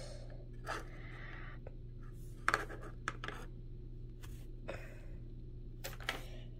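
Small plastic Littlest Pet Shop figurines clicking and tapping against a tabletop as they are handled and set down: a few scattered knocks, the sharpest about two and a half seconds in, over a low steady hum.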